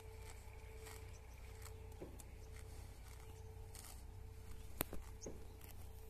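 Cows grazing close by, tearing and chewing grass: irregular crisp tearing and crunching clicks, with one sharper snap near the end. A faint steady hum runs underneath.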